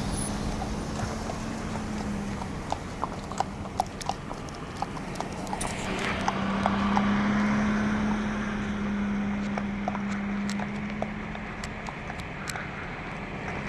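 Horse hooves clip-clopping at a walk on a hard road, irregular hoof strikes one to three a second. A steady low hum sounds underneath in two stretches, near the start and again in the middle.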